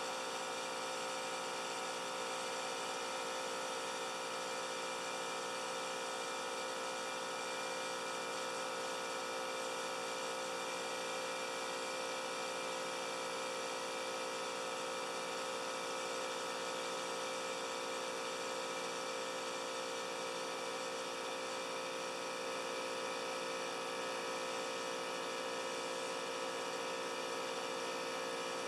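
Two tandem-connected air compressors, a Brute 10-gallon portable unit and a larger one, running together at a steady motor-and-pump drone as they refill their linked tanks after the air draw was shut off.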